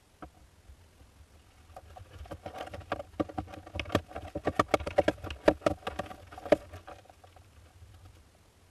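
Hoopoe chicks scrambling about inside their nest box: a spell of irregular scratching and tapping that builds up, is densest in the middle and dies away.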